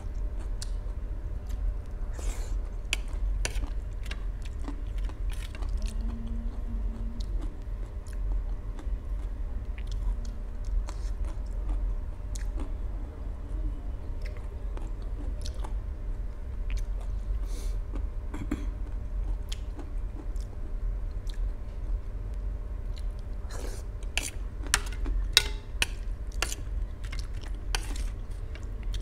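A person chewing mouthfuls of instant noodles close to the microphone, with scattered sharp clicks that come thick and fast near the end as the spoon scrapes and taps the steel plate. A steady low hum runs underneath.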